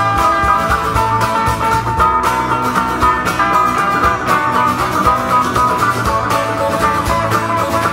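Live folk band playing an instrumental passage with no vocals: electric guitar over strummed acoustic guitar and cajon, with a steady beat and moving guitar notes.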